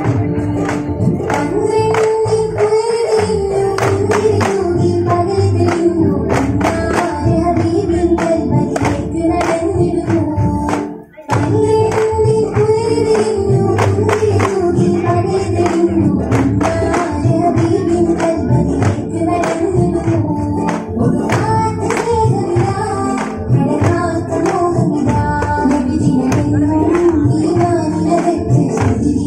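Daff muttu: hand-held daf frame drums struck in a steady rhythm under a sung devotional song. The music breaks off briefly about eleven seconds in, then resumes.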